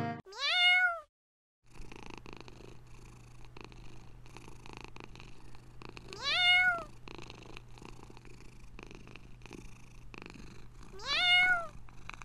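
A domestic cat purring steadily, broken three times by a meow that rises and then falls, about five seconds apart. The purring sets in shortly after the first meow.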